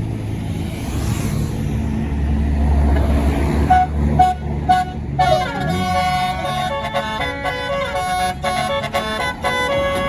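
A bus engine running with a low rumble, then about four seconds in three short toots, followed by a telolet basuri multi-tone bus horn playing a melody of held notes with a falling glide.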